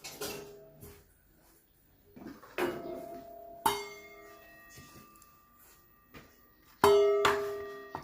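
Metal kitchenware being knocked and set down, clanking several times; the strongest clanks come about two and a half, three and a half and seven seconds in, each ringing on briefly.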